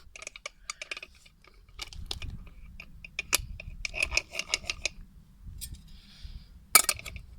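Scattered metallic clicks and clinks, with one louder clank near the end, from handling the metal pot and cut-down stone-cutting disc of a homemade angle-grinder crusher. The grinder itself is not running.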